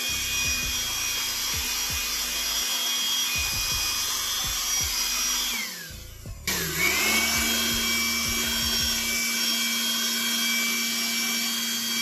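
Handheld electric blower running at a steady pitch, blowing air over a bicycle's wet disc brake rotor to dry it after washing. About six seconds in it is switched off and winds down, then restarts a moment later and spins back up to speed.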